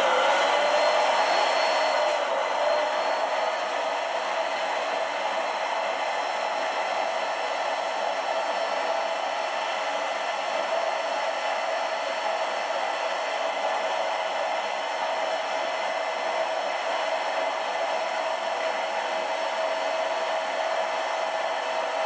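Electric air pump running steadily as it inflates a large vinyl beach ball. Its whine rises in pitch for the first second or two after switching on, then holds steady.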